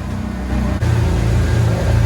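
Motorboat engine running steadily under way with a low hum, the hum stepping up a little under a second in, over the rush of wind and water.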